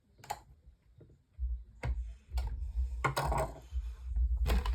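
Screwdriver and plastic fan housing clicking and tapping as screws are tightened, with a low rumble of handling from about a second and a half in.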